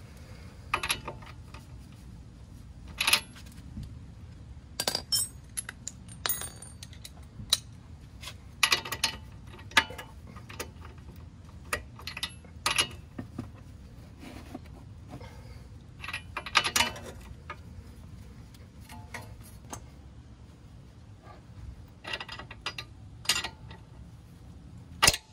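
Irregular metallic clinks and clicks of a wrench on the stabilizer link nut at the front strut of a Chevy Volt as the nut is tightened, some coming in short quick runs.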